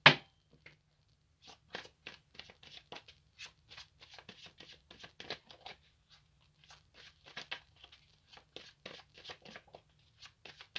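A deck of tarot cards shuffled by hand: irregular soft flicks and rustles of the cards, with one sharp click at the very start.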